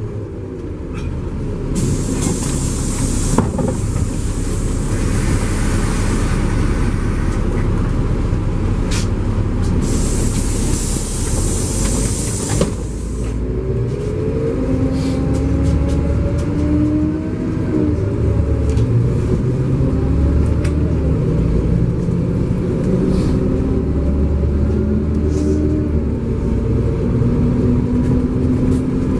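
LiAZ-5293.60 city bus running, heard from inside: steady low engine and drivetrain noise, with two bursts of hissing in the first half and a whine that rises in steps from about halfway on.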